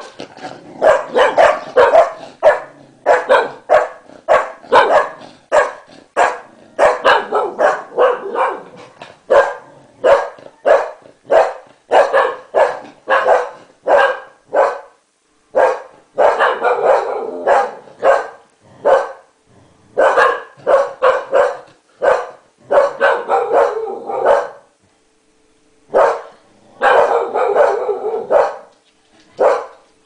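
English Cocker Spaniel barking in a rapid, insistent string of short barks, about two or three a second, with a brief pause near the end. The barking is the dog's reaction to a person sneezing.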